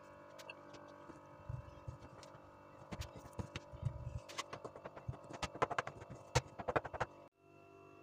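Irregular light clicks and taps, with a few dull thumps, from a spoon and hands filling and pinching dough pies on a wooden table, over a faint steady hum. The clicks come thickest in the second half and cut off suddenly near the end.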